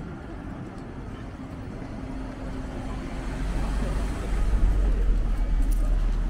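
Street traffic: a motor vehicle's low engine rumble grows louder about halfway through, as if passing close by.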